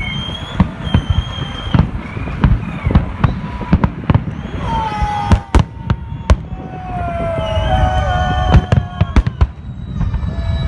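Festive fireworks salute: many sharp, irregular bangs of shells bursting over a continuous low rumble, with long whistling tones, some gliding downward, sounding over them.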